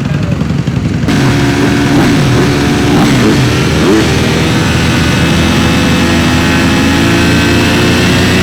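Several dirt bike engines revving on a supercross track, their pitch repeatedly rising and falling as the riders throttle up and shift. A lower rumble gives way abruptly to the louder, closer engines about a second in.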